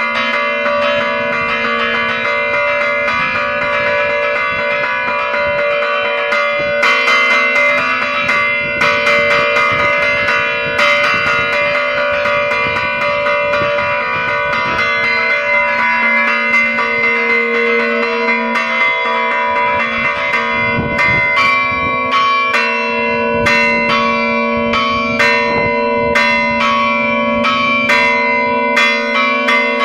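Church bells rung by hand in a fast festive peal (repique), the clappers pulled by ropes so that quick strokes follow one another and the bells ring on without a break. The single strokes stand out more clearly in the last third.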